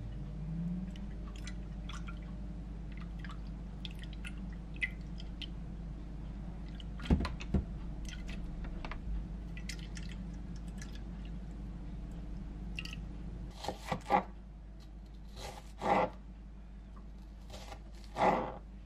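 Flavored soy sauce and water poured from a glass jug into a glass container of baked eggs, a steady pour with a couple of sharp clinks about seven seconds in. From about two-thirds of the way through, a kitchen knife chops on a cutting board, about six separate strokes.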